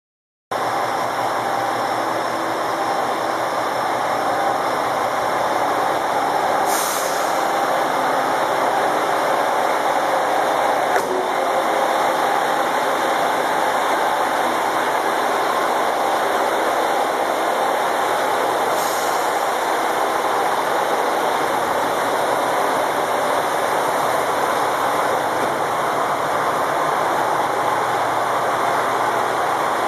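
JR Shikoku 2000 series diesel railcars' engines running steadily as the cars move along the platform. Two short hisses of air sound about 7 and 19 seconds in.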